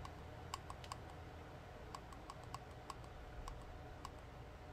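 Faint, quick clicks of the small plastic buttons on an EasyMax blood glucose meter, pressed over and over at an uneven pace to step through the month setting.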